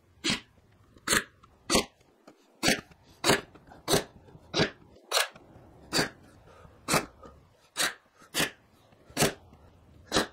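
Ryobi AirStrike cordless brad nailer firing brads one after another into quarter-inch plywood underlayment for a drawer bottom: about fourteen sharp shots, roughly two-thirds of a second apart.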